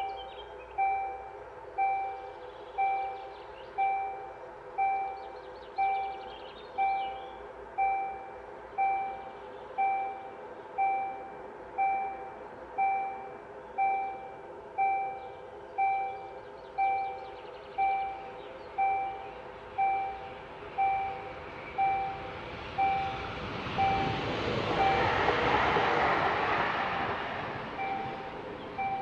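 Level-crossing warning bell striking steadily about once a second, each stroke ringing and fading. Near the end an Aare Seeland mobil electric regional train passes over the crossing, swelling up to drown the bell for a few seconds and then easing off as the strokes come back.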